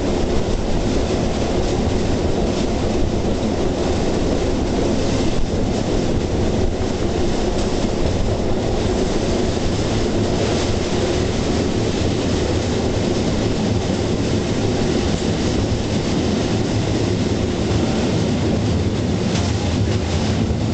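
Steel wheels of a rail bike rolling along the rails across a steel railway bridge, a steady rumble with a faint click now and then.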